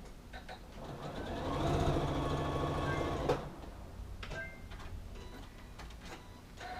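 Electric sewing machine running for about two seconds: its motor whine rises as it speeds up, holds steady while stitching, then stops abruptly with a click. A few light clicks and fabric-handling noises follow.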